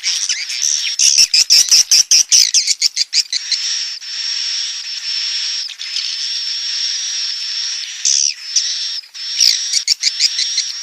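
Swiftlet nestlings calling in the nest. A fast run of sharp high chirps gives way after a few seconds to a steady high buzzing chatter, and the chirps return near the end.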